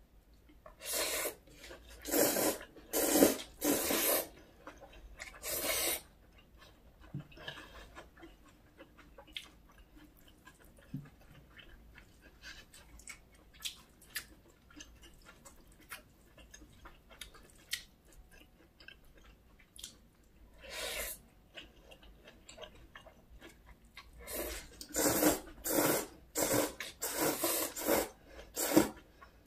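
Close-miked eating of spicy bibim noodles with whelk: noodles slurped in a run of loud, short bursts near the start and again near the end, with quieter wet chewing and small mouth clicks between.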